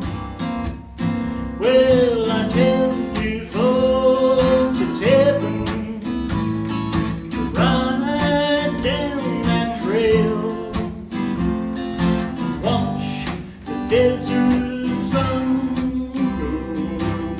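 Acoustic guitar strumming a country cowboy tune, with a wordless melody of held notes that slide into pitch carried over the strumming.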